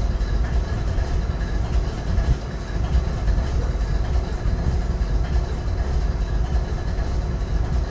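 GE ES40DC diesel locomotive's GEVO-12 V12 engine idling steadily: an even low rumble with a faint steady hum above it.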